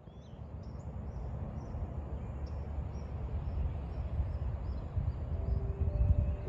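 Outdoor dawn ambience: a low, gusty rumble like wind on the microphone, with a bird chirping repeatedly, about two short high chirps a second. Near the end, soft sustained music notes come in.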